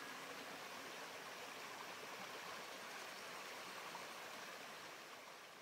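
Forest stream with small waterfalls, water rushing and splashing steadily over rocks, growing a little quieter near the end.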